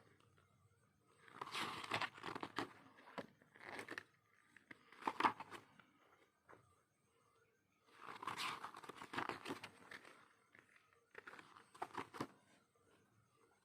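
Packaging being handled and unwrapped by hand: irregular bursts of crinkling and tearing with small clicks and knocks, in about five separate bouts with quiet gaps between them.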